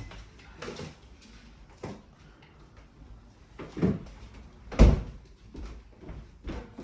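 A series of short thumps and knocks during a chiropractic neck and back adjustment, the loudest and deepest nearly five seconds in.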